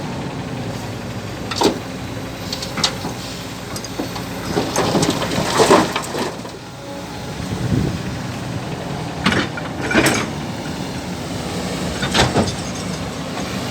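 Kobelco excavator working while loading soil into a dump truck: a steady engine drone with a series of sharp clanks and knocks, and a louder rough stretch around the middle.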